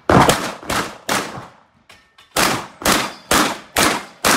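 Rapid shots from a Benelli M2 SP semi-automatic shotgun: three shots about half a second apart, a pause of about a second and a half, then five more at the same quick pace.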